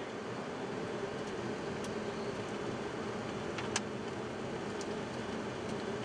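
Steady flight-deck noise of a Boeing 737-200 in flight on approach: a rushing hiss of air with a low hum underneath, and a faint click a little past halfway.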